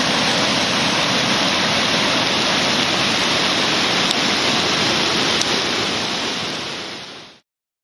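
Rain-swollen Horsepasture River in flood over its banks, its fast current and whitewater rushing steadily and loudly. The sound fades and cuts off near the end.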